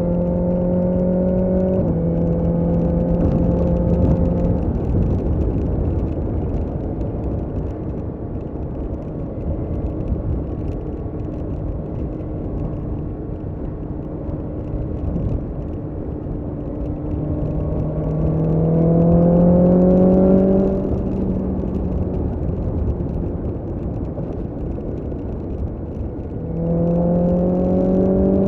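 BMW S1000R's inline-four engine on the road, pulling at first, then settling to a quieter steady cruise. It accelerates with a rising pitch about two-thirds of the way through, eases off, and climbs again near the end, over a constant rush of wind and road noise.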